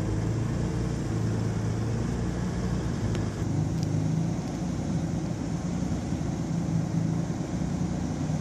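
Jaguar E-Type's inline-six engine idling steadily with an even, low note.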